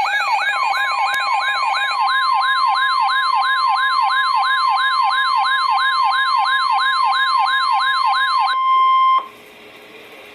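NOAA Weather Radio warning alarm: a steady 1050 Hz tone under a siren-like sweeping alarm that rises and falls about three times a second. The alarm signals a new warning coming over the radio. The sweeping stops near the end and the steady tone cuts off a moment later, leaving faint radio hiss.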